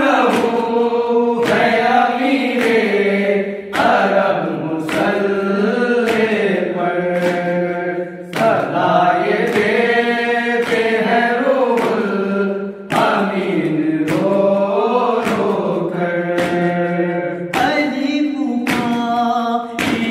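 A group of men chanting a nauha, a Shia lament, in unison without instruments. Sharp hand strikes keep time about once a second and come faster near the end.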